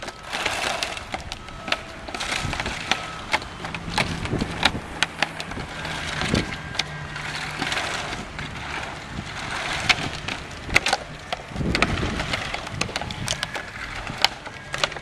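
Interlocking plastic turf-protection floor panels clacking and knocking as they are set down, slid into place and snapped together, with many scattered sharp clicks and thumps and some footsteps on the laid floor.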